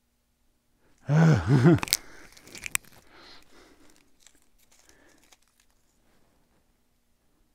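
A man's brief wordless vocal sound with a swooping pitch, about a second in, then crinkling and crackling of thin red plastic film pieces being handled, including two sharp crackles, that fades out after a few seconds.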